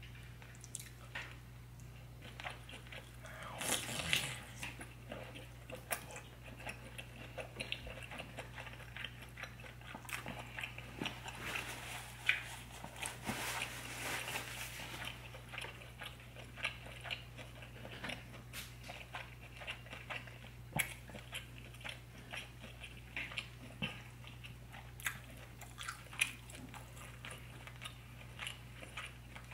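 Close-miked eating of sauce-drenched seafood boil: chewing and wet mouth clicks, mixed with sticky squelches as butter-sauced crab and lobster meat is handled. A steady low hum runs underneath.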